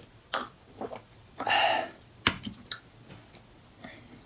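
Two quick swallows from a glass of drink and a half-second breathy sound, then a sharp clink as the glass is set down on the table about halfway through, followed by a few small clicks.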